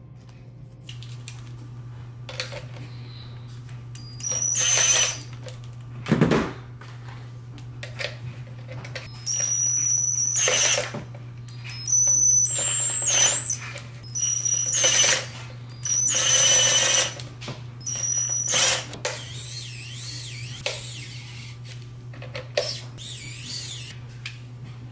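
Small cordless electric screwdriver driving fan mounting screws into a metal rack case, in several short runs of about a second each, each with a high motor whine. A single knock comes about six seconds in, and a steady low hum runs underneath.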